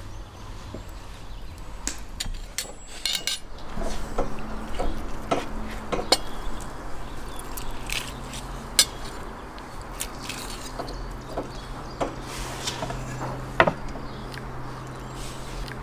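Scattered clinks and taps of metal skewers and cutlery against ceramic plates as grilled chicken is pushed off the skewers and served. A low steady hum runs underneath in the second half.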